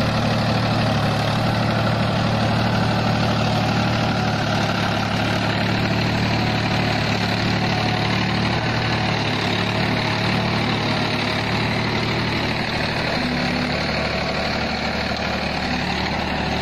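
Trakstar 540 tractor's diesel engine running steadily under load, pulling a mouldboard plough through hard, dry soil.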